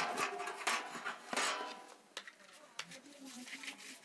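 Light taps, scrapes and clinks of hands working bread dough on a floured wooden board. The sounds are busiest in the first second and a half, then thin out to scattered small taps.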